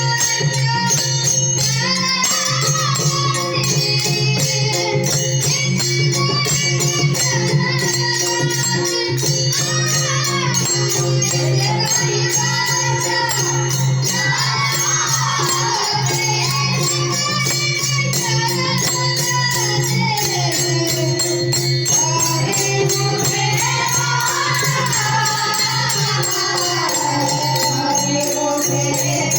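Marathi devotional kirtan singing: a man sings a verse in long, sweeping melodic phrases over a steady drone, with small cymbals jingling in an even beat.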